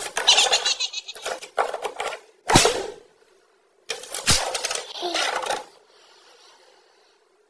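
Plastic desk-grommet cap knocking and clattering on a wooden desk as a cat's paw pushes it up through the cable hole from below. There are three sharp knocks, with noisy scuffling between them.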